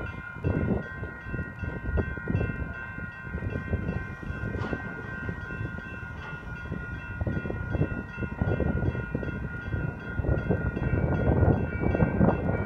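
Railroad crossing electronic bells (General Signals type-2 e-bells and a WCH Type 1.5 e-bell) start ringing together at the outset as the crossing activates, a fast steady chiming. Uneven wind buffeting on the microphone runs underneath.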